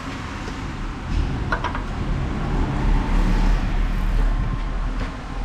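Low rumble of a vehicle that swells after about a second and eases near the end, with a couple of short clicks about a second and a half in.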